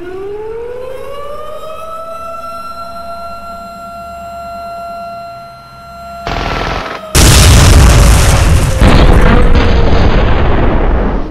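Air-raid siren winding up in pitch and then holding a steady wail. About six seconds in, explosions break out, loud from about seven seconds on, while the siren sinks in pitch beneath them.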